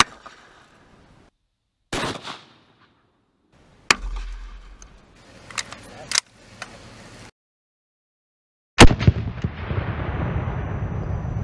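AK-pattern 7.62 mm rifle fired: a very loud shot about two-thirds of the way in, ringing out in a long echo over a low rumble. Before it come a few shorter sharp cracks and clicks in clipped snippets, broken by sudden dead silences.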